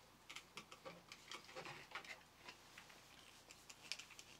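Faint, irregular small clicks and ticks, a few a second: a flat-blade screwdriver turning a small screw through 3D-printed plastic linkage pieces as they are handled.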